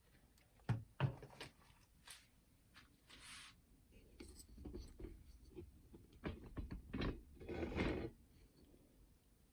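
Handling noise from a plastic boombox being worked on: scattered clicks and knocks, with a couple of brief rustles.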